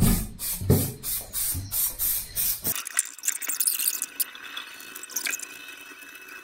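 Aerosol spray paint can spraying in short hissing bursts, about three a second, then a quieter, steadier spray hiss from about three seconds in.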